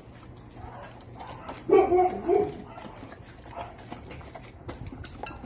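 A large dog eating from a glass bowl: a run of quick clicks from chewing and muzzle and teeth against the bowl. About two seconds in there is a short, louder vocal sound.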